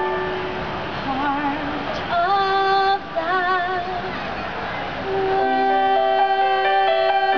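A girl's amplified voice singing three short wordless phrases with a wavering vibrato, then about five seconds in, backing music of steady sustained keyboard-like chords comes in.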